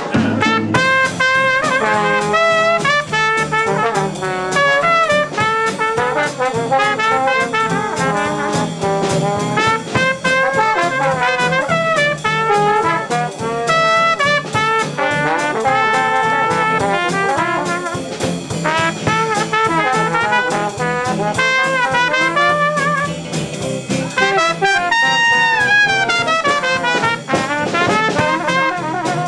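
Live jazz band playing, with trumpet and trombone carrying the melody over a drum kit keeping time with steady cymbal and drum hits.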